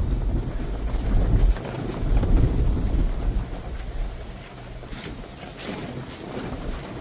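Wind buffeting the microphone: a low rumble, heaviest for the first few seconds, then easing off.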